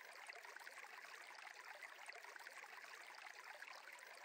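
Faint, steady sound of a flowing stream, a water ambience bed under the meditation.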